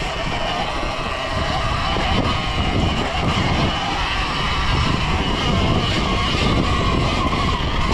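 Sur-Ron Ultra Bee electric dirt bike under way on a trail: the electric motor's steady whine over a rough low rumble of riding noise.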